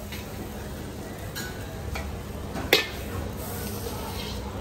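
Metal ladle scraping and clanking against a steel wok as fried food is scooped out and plated, over a light sizzle. A few sharp clanks, the loudest about two and a half seconds in.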